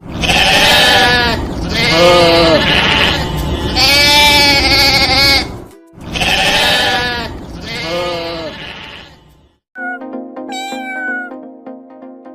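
Goat bleating: about five loud, long, wavering calls, one after another. From about ten seconds in, quieter steady tones with a few quick chirps take over.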